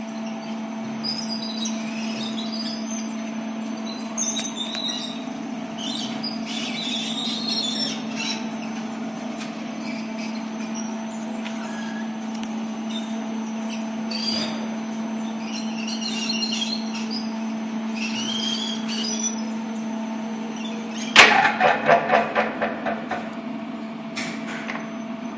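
Elevator LEO drive unit running with a steady hum, and irregular high squeaks: the strange noise it is making. About 21 seconds in comes a sudden loud clack followed by a fast rattle that dies away over about two seconds.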